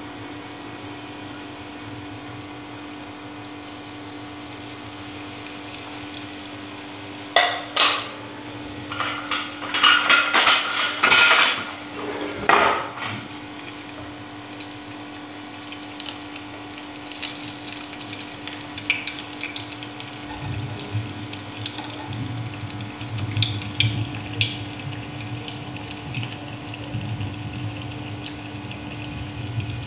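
Bread frying in hot oil in an aluminium saucepan, with metal tongs clattering against the pan. A loud spell of crackling and clatter comes about 7 to 13 seconds in, followed by lighter crackling and scattered clicks over a steady low hum.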